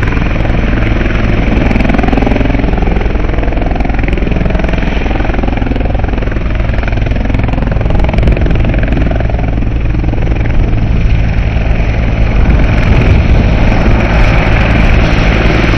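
Helicopter with a two-bladed main rotor touching down and running on the pad with its rotor still turning: a loud, steady turbine and rotor drone.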